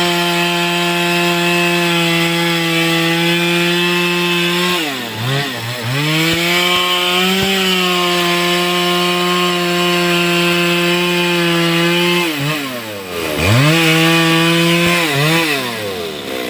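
Stihl two-stroke chainsaw running at high revs through wood, its steady pitch dropping sharply and picking back up about a third of the way in, again about three quarters in, and once more shortly after.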